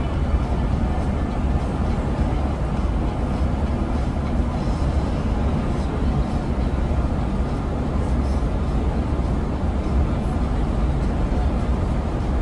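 Steady engine and road drone heard inside the driver's cab of a Mercedes-Benz Travego coach cruising at highway speed.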